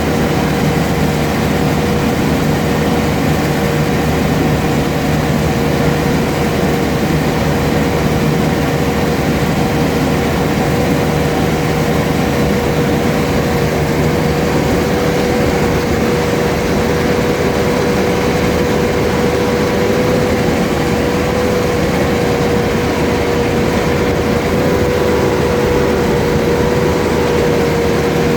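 Combine harvester running steadily: a constant engine rumble with an unchanging whine over it.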